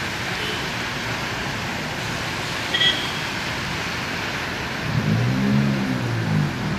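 Road traffic over a steady hiss. A short high beep sounds about three seconds in. From about five seconds in, a passing vehicle's engine rises and falls in pitch.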